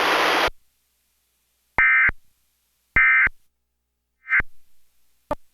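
Emergency Alert System end-of-message tones: two short buzzing bursts of digital data code about a second apart, then a shorter third burst, signalling the end of the alert test. A loud hiss cuts off about half a second in, and a brief click comes near the end.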